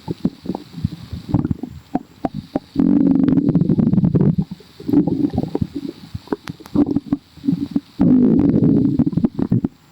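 Human stomach growling and gurgling, bubbly: a rapid, irregular run of small pops and clicks, with two longer, louder growls, one starting about three seconds in and another about eight seconds in.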